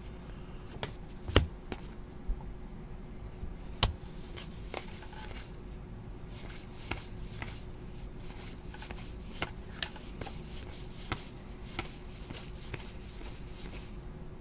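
Baseball cards being flipped through by hand: soft rubbing of card stock as cards slide off the stack, with irregular light clicks as their edges tap together, over a faint steady hum.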